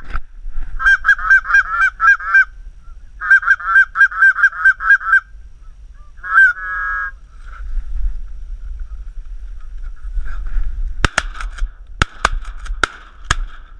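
Geese honking in quick, evenly spaced runs of calls, two bursts in the first five seconds and a few more just after, then several sharp shotgun shots about a second apart near the end as the hunters fire at the incoming flock.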